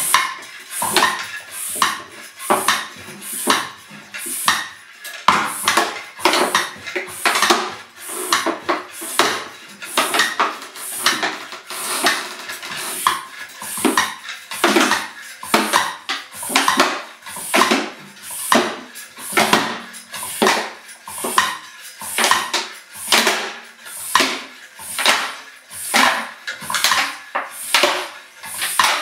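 Floor-standing bicycle pump worked by hand in steady strokes, about one a second, each stroke a hiss of air with a light clatter, pumping up a squashed plastic bottle through a bicycle-tyre valve fitted in its lid.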